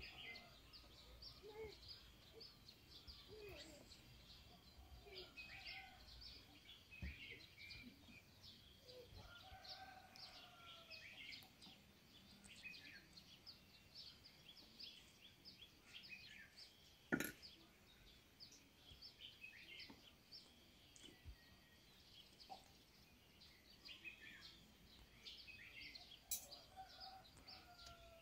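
Small birds chirping in short, scattered calls over faint outdoor ambience, with a single sharp knock about 17 seconds in.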